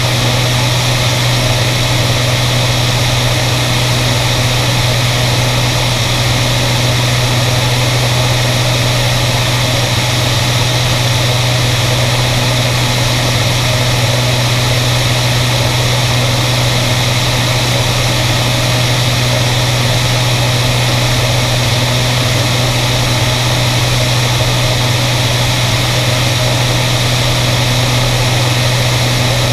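Beriev Be-103 twin piston-engine amphibian in cruise: a steady, unchanging low drone of engines and propellers, with a rush of airflow over the microphone.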